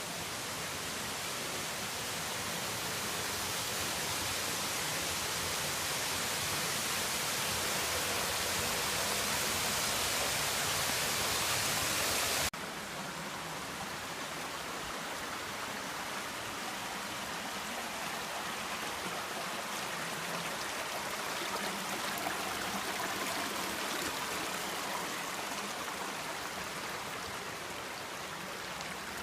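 Steady rush of falling water from a mountain waterfall cascade. About halfway through it drops suddenly to a lower level and carries on.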